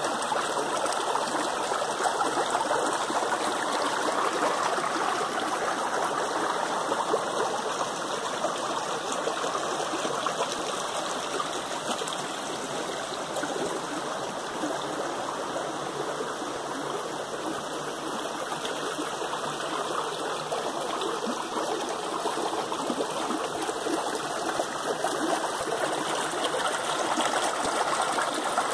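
Shallow creek water running over rocks, close by: a steady rushing babble that eases a little in the middle and swells again near the end.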